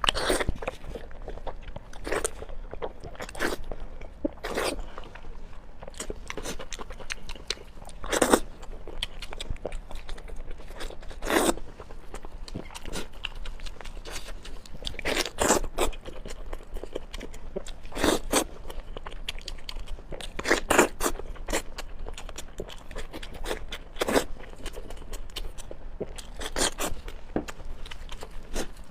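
Close-miked eating: irregular bites and crunchy chewing, with a louder crunch every few seconds.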